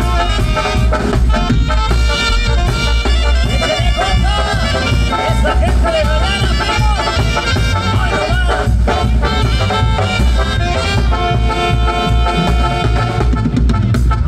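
Tamborazo band playing live: brass carrying the melody over a steady booming tambora bass drum, in an instrumental passage with no singing.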